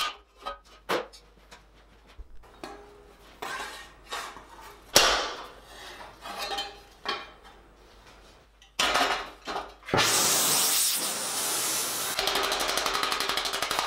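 Sheet steel and hand tools clanking and tapping in scattered knocks while a steel helmet blank is handled, with one sharper metal strike about five seconds in. From about ten seconds a loud, steady hissing rush takes over, pulsing quickly and evenly in its last seconds.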